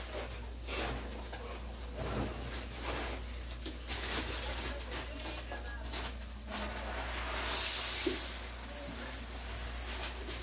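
Rice toasting in hot oil in an aluminium pot on a gas stove, sizzling with a steady hiss. A louder burst of hiss comes about seven and a half seconds in and lasts under a second.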